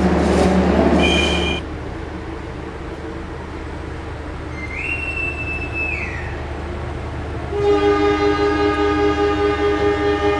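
A high whistle is blown once for about two seconds near the middle. Then a diesel locomotive horn sounds a long steady note for about three seconds near the end. Together they are the departure signals for the Logawa train leaving the platform.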